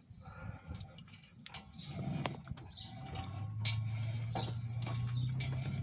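Worn wheel hub assembly on a 2013 Nissan Armada, the raised wheel turned by hand: clicking and a low, steady rumble that grows in about halfway through. It is the sign of a bad hub bearing, a wheel that is not rolling easily. Birds call repeatedly in the background.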